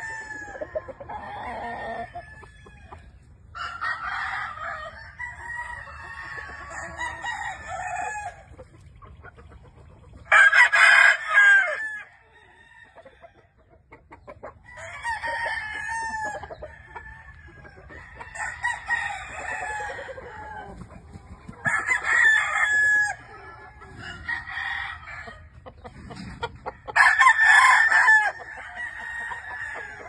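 Several gamefowl roosters crowing one after another and overlapping, the loudest crows about a third of the way in and again near the end, with hens clucking between.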